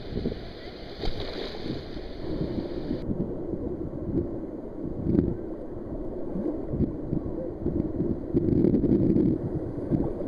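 Shallow ocean surf washing and sloshing close to the microphone, with wind rumbling on it.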